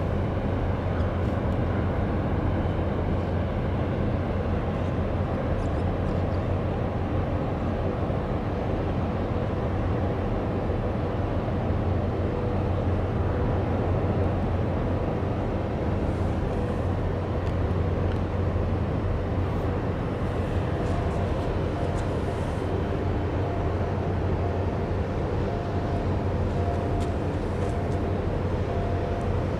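Steady low rumble of a large container ship's machinery as the Evergreen L-type ship passes close by under way, with a faint steady hum running over it.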